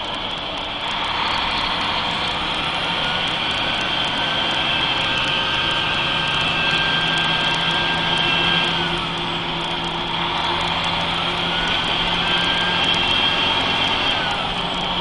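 Mercedes-Benz 3340 truck's diesel engine running with a turbocharger whistle that rises, holds for several seconds and falls away, twice, as the engine is revved. The turbo noise is the suspected fault.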